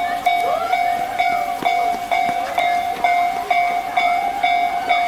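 Japanese railway level-crossing warning bell ringing in an even electronic clang, about two and a half strokes a second. Short high squeals rise and fall over it.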